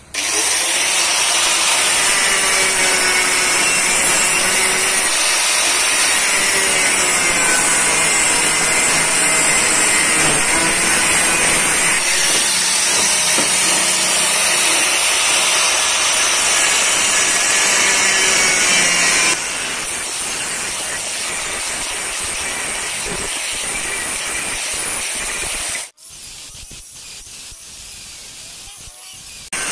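Electric angle grinder with a thin cut-off disc running at high speed with a high whine, cutting into rectangular steel tube. The sound comes on abruptly, is loudest until about two-thirds through, then drops lower, cuts out briefly near the end and goes on quieter.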